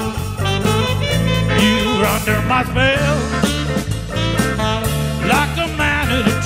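A live band playing an instrumental break with saxophone, electric guitar, bass and drums over a steady swing-blues groove. The lead line bends in pitch a few seconds in.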